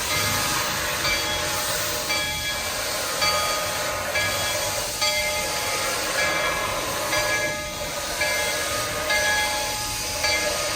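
Steam locomotive bell ringing steadily about once a second over a constant hiss of steam.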